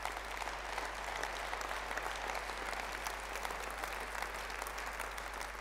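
Audience applauding in a large hall: many hands clapping in a dense, steady patter.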